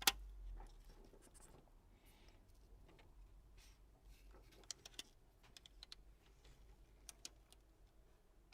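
Faint scattered clicks and light scratching of careful hand work removing the adhesive seal inside a smartphone, with one sharp click right at the start.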